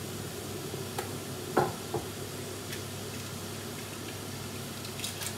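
Diced potato going into a pot of leeks sweating in oil, with two sharp knocks against the pot about one and a half and two seconds in and a few light clicks near the end, over a steady low hiss.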